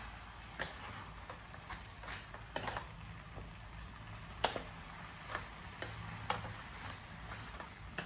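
A wooden spatula knocks and scrapes against a metal wok at irregular intervals, about a dozen sharp clicks and short scrapes, as greens and pork are stir-fried. The loudest knock comes about halfway through.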